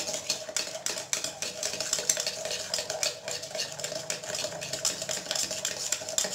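A metal spoon beating fast inside a steel tumbler, a quick, even run of clinks and scrapes against the sides. The spoon is hand-whipping instant coffee, sugar and warm water into dalgona foam.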